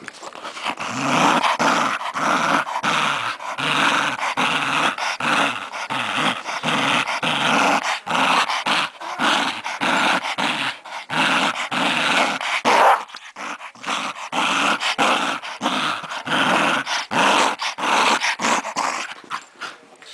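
Scottish Terrier growling in rough, rapid pulses while tugging at a plush toy: play growling during a game of tug-of-war.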